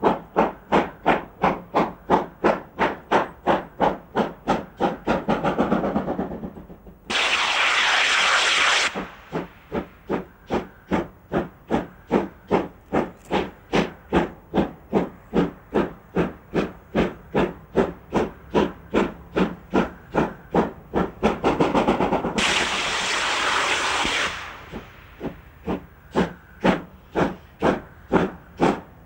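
Steam locomotive working a passenger train, its exhaust chuffing in steady beats at about three a second. Twice, about seven seconds in and again about twenty-two seconds in, a loud hiss of steam rises over the beats for about two seconds.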